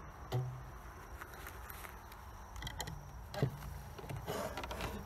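A few soft clicks and knocks of gloved hands handling a wooden hive frame while rubber bands are fitted around pieces of honeycomb. They come about half a second in, again past three seconds, and near the end.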